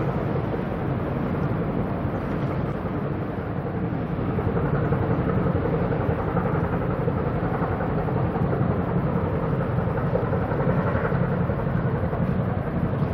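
Steady low engine rumble with a hiss over it, a little louder from about four seconds in.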